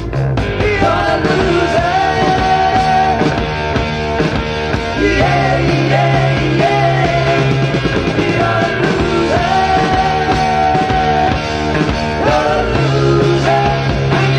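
Heavy blues-rock band recording: long held, wavering lead notes over sustained low bass notes and drums.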